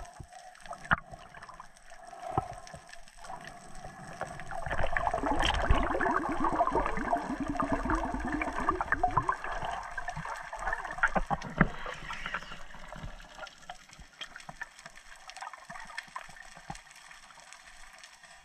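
Underwater sound picked up by a GoPro: water noise with scattered sharp clicks, and a louder stretch of gurgling and bubbling from about five to twelve seconds in.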